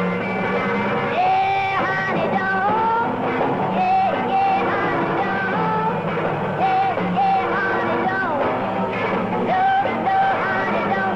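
Rock and roll band music with a steady beat and a repeating phrase of held notes that slide at their ends, recurring about every two and a half seconds.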